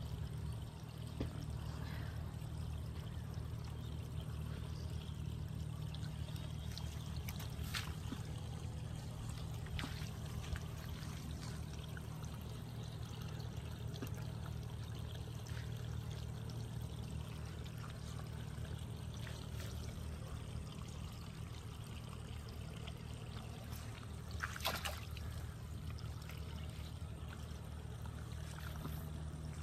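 Steady outdoor ambience: a constant low hum under a trickling, water-like noise, with a few short clicks.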